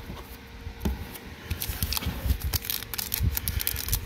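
Light clicks and soft taps of Magic: The Gathering trading cards being handled and set down on a table, then a foil booster-pack wrapper being picked up and handled, its rustle and clicks getting busier from about a second and a half in.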